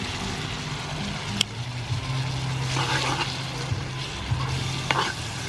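Water poured into a hot wok of frying clams and vegetables, sizzling and bubbling, with a metal spatula clicking against the pan a few times as it stirs. A low steady hum runs underneath.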